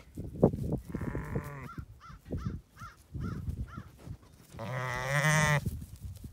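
Lambs bleating at close range: a short soft bleat about a second in and a louder one near the end that rises in pitch at its close. There is a knock early on and rustling as a lamb's fleece rubs against the microphone.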